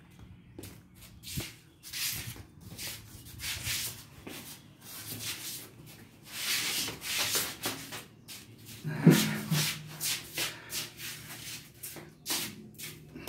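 Handling noise: irregular rubbing and scraping of hands or clothing against a handheld phone's microphone, with one short louder low sound about nine seconds in.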